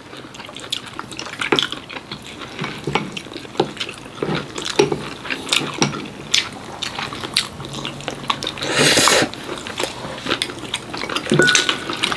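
Chopsticks and spoons clinking and scraping against bowls and a hot pot while eating, with scattered sharp clicks and taps and a short rush of noise about nine seconds in.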